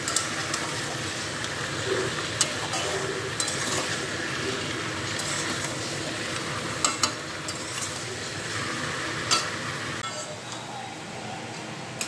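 Marinated chicken and onions sizzling as they fry in a metal karai on a gas burner, stirred and scraped with a metal spatula that clinks sharply against the pan several times. The sizzle quietens about ten seconds in.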